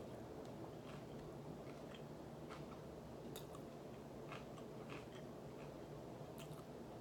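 A person chewing food close to the microphone: faint, irregular mouth clicks and crunches over a steady low hum of room tone.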